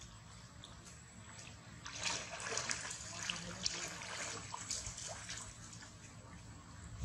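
Water splashing and sloshing as monkeys swim and thrash in a pond, with a busy run of splashes starting about two seconds in.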